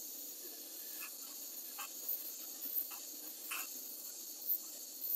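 Pencil torch flame hissing steadily as it heats the master cylinder body to loosen the old sight glass and its O-ring, with a few faint ticks.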